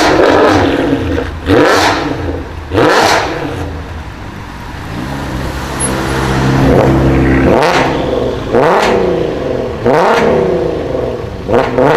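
Modified car engine revved in a series of about six sharp throttle blips, each a loud blast whose pitch falls straight back. In the middle there is a quieter stretch where the revs climb slowly.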